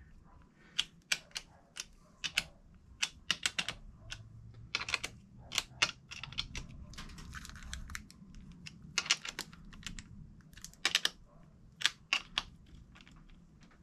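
Scattered sharp metallic clicks, some in quick little runs, as the terminal nuts on the busbars of a LiFePO4 prismatic-cell battery are tightened down with a small hand tool.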